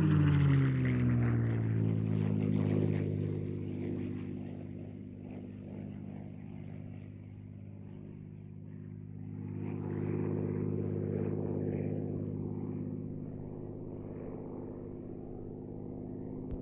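P-51D Mustang's Packard Merlin V-12 engine running in flight. Its pitch drops in the first second as it passes, then it holds steady, fading, swelling again about ten seconds in, and fading toward the end.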